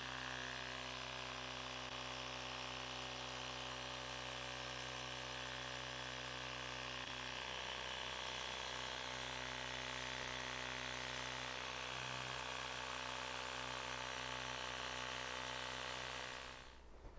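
Portable electric car-tyre inflator running steadily while pumping up a balloon, a steady motor hum; it cuts off about a second before the end. This inflator shuts itself off once it reaches its set PSI.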